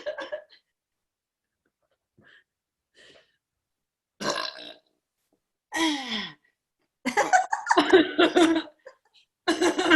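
A woman burping deliberately for a contest. After a few quiet seconds there is a short burp, then one that falls in pitch, then longer, louder burping in the last three seconds.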